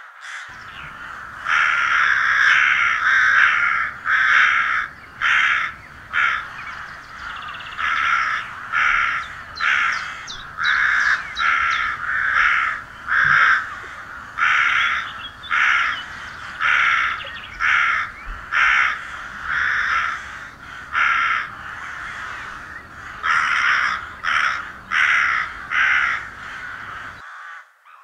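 Crows cawing over and over: harsh caws that come almost back to back at first, then roughly once a second with short gaps.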